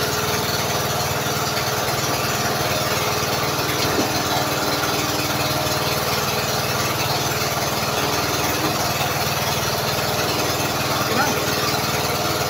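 Fishing boat's engine running steadily, with a single knock about four seconds in.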